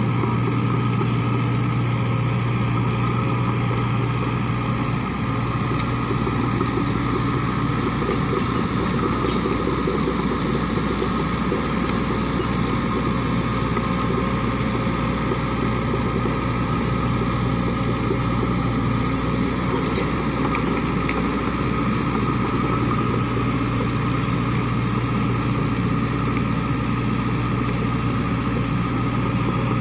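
Sany SY55C mini excavator's diesel engine running steadily as the machine works. Its low drone eases about five seconds in and grows stronger again later.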